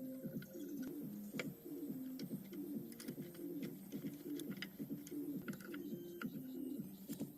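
Doves cooing over and over in low, hooting notes, with a few faint clicks among them.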